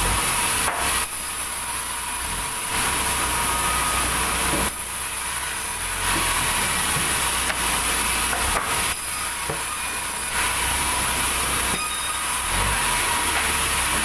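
Band sawmill running and cutting red durian wood: a steady high hiss of the blade through the timber over the low hum of the saw's motor, the sawing noise swelling and easing in stretches of a few seconds.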